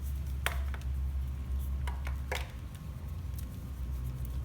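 A few short clicks and rustles over a steady low hum.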